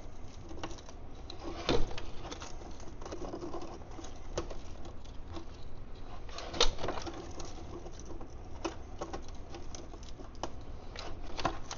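Small clicks and knocks of hand work in an engine bay, with two sharper knocks, one about two seconds in and one just past the middle, over a low steady hum.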